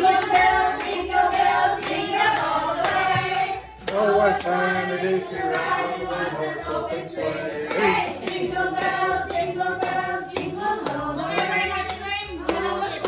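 A group of people singing together, with hands clapping along in time; the singing breaks off briefly about four seconds in.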